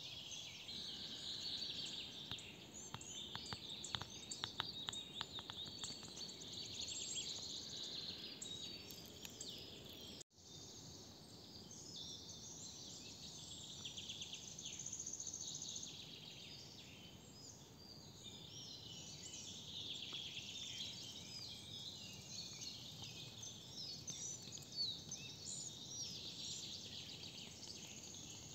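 Forest birdsong: many small birds chirping and singing at once. A run of sharp ticks comes a few seconds in, and the sound cuts out for an instant about ten seconds in.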